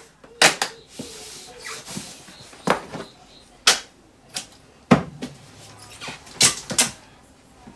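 Cardboard balikbayan box being handled while it is closed for shipping: a handful of sharp, irregular knocks and scrapes as its flaps are pressed and worked.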